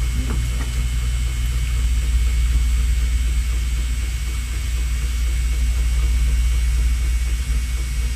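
Bishop Wand rotary tattoo pen running steadily as it tattoos skin: a constant low hum with a faint high whine over it.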